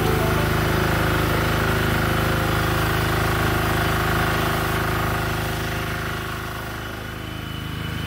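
A small engine running steadily and loudly, easing off slightly near the end.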